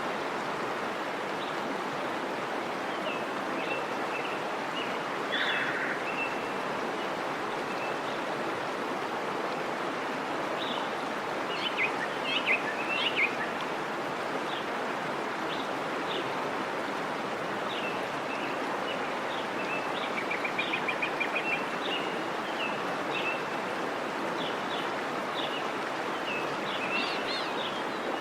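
Birds chirping over a steady rushing background noise, with scattered short calls, a louder cluster of chirps about halfway through and a quick trill a little later.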